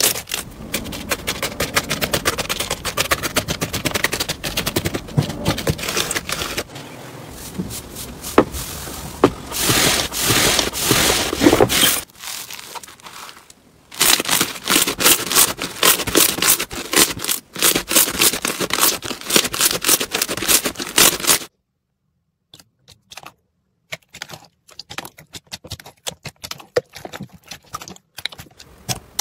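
Hands pressing and kneading slime, giving rapid crackling and popping clicks as air pockets are squeezed. The sound comes in several stretches with short gaps between them. One stretch is a slime packed with foam beads.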